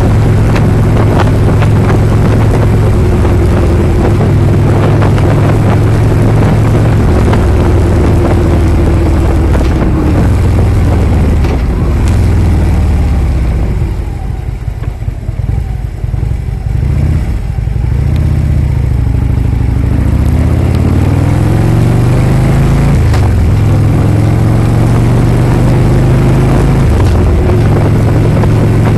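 Harley-Davidson V-twin motorcycle engine running under way: steady at first, then the pitch falls and the sound drops as the rider eases off about halfway through, before the pitch rises again as the bike accelerates back up to speed.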